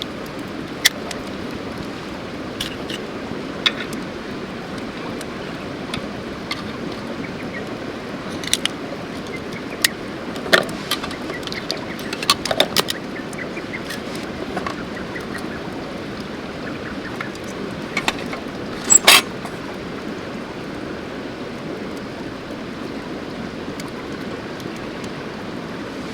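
Steady rush of a river flowing. Scattered light clicks and clinks, like small gear being handled, with the loudest, a quick double clink, about three-quarters of the way through.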